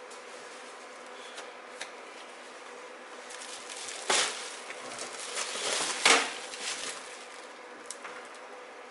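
Paper towel rubbing and rustling in a few hard strokes between about three and seven seconds in, wiping old thermal paste off a CPU cooler. A steady hum runs underneath.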